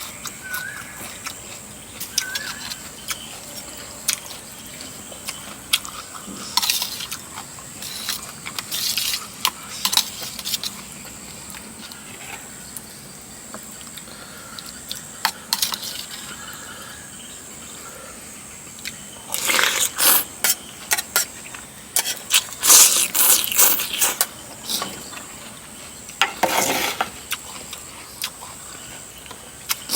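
Close-miked eating of rice noodles in coconut curry with chicken feet: wet slurping, smacking and chewing clicks. The clicks come in dense clusters in the last third.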